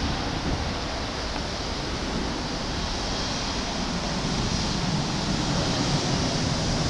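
Embraer E175 jet airliner's twin General Electric CF34 turbofans at takeoff thrust, heard from afar as a steady rushing noise as the jet lifts off and climbs. The noise grows slightly louder near the end.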